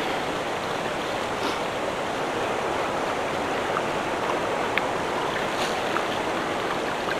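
Steady rush of flowing water from a creek or stream, even and unbroken, with a couple of faint ticks.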